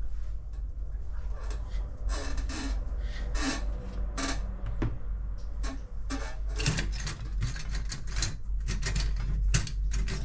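Handling noise on a workbench: metal parts and tools knocked, scraped and picked up in irregular clicks and rubs, busier from about two seconds in, over a steady low hum.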